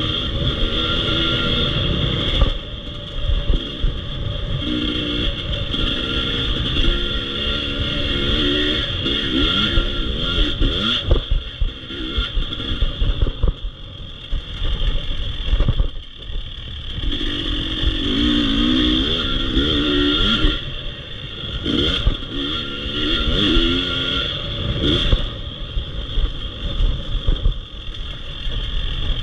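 Husqvarna motocross bike's engine under riding load, revving up through the gears and easing off several times as the throttle is opened and shut.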